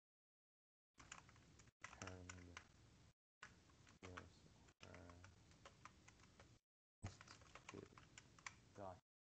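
Faint typing on a computer keyboard: runs of quick key clicks that cut in and out in stretches.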